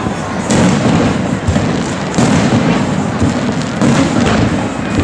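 Aerial firework shells bursting in a rapid barrage: repeated sharp bangs at irregular intervals over a continuous rumble and crackle.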